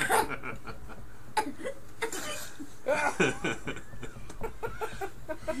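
People chuckling and laughing in short bursts.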